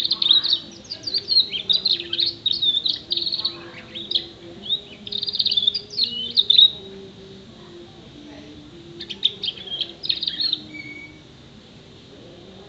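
Six-month-old canary singing a fast, chattering song packed with phrases learned from other birds, such as sparrow, prenjak, pleci, blackthroat and ciblek calls. It sings one long run for several seconds, falls quiet, then adds a shorter phrase ending in a brief whistled note. By the owner's reckoning the bird is still singing at only about half its full volume.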